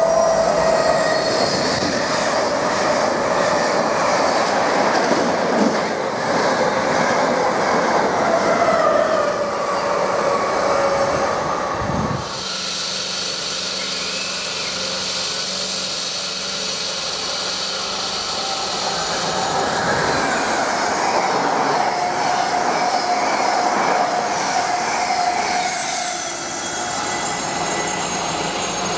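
Class 90 electric locomotive-hauled Mark 3 passenger trains passing at speed on electrified main line: steady wheel-on-rail rumble with a held whine that slowly falls in pitch. It breaks off about 12 seconds in, and a second pass builds up with a steady whine near the end.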